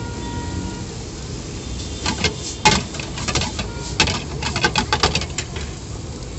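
Steel ladle clanging and scraping against a pan of noodles as they are tossed and stirred over a gas burner: a quick run of sharp metal clatters from about two seconds in until past five seconds, over a steady low rushing background.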